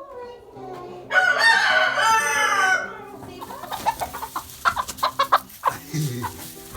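A rooster crows once, a loud, wavering call of about two seconds, followed by hens clucking in short, quick notes for several seconds.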